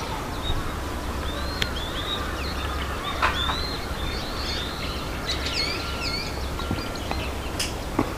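Small birds chirping repeatedly in short rising and falling notes over a steady low rumble of outdoor background noise.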